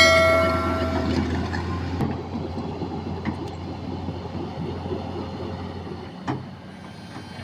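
A heavy vehicle's engine running with a steady low hum that slowly fades away, with a horn note at the start dying out within about a second. A single brief knock about six seconds in.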